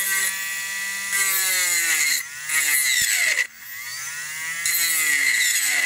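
A homemade brushless spindle, a Turnigy P2627L 4200kv outrunner motor driving a Foredom H43T handpiece, runs at its slowest speed with a whining hum. Its pitch swings down and back up several times as it is loaded by hand, but it barely slows.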